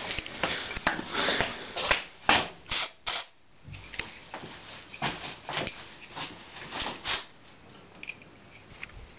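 Irregular clicks, knocks and rustling of something being handled, thick in the first three seconds, then sparser and quieter.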